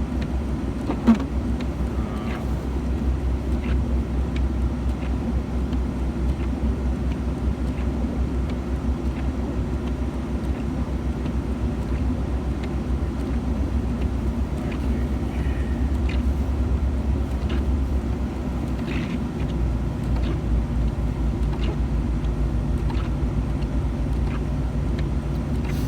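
A vehicle being driven: a steady low drone of engine and tyre noise heard from inside the cab, with a sharp click about a second in.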